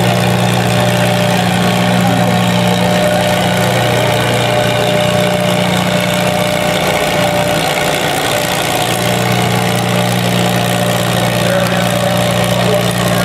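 Farmall M tractor's four-cylinder engine idling steadily. Its low hum thins out for a couple of seconds about halfway through, then comes back.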